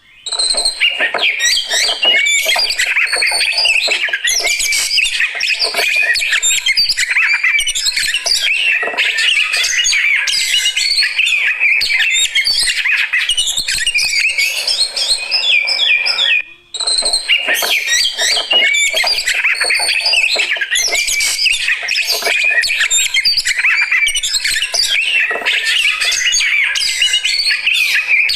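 Oriental magpie-robin (kacer) singing a loud, continuous, rapid and varied song of whistles and harsh chattering notes. The song breaks off abruptly for about half a second a little past the middle, then resumes.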